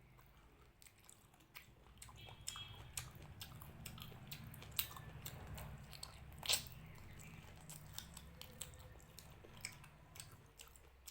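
Close-miked chewing of mutton curry and rice: wet mouth clicks and smacks at an irregular pace, with one sharper click a little past halfway.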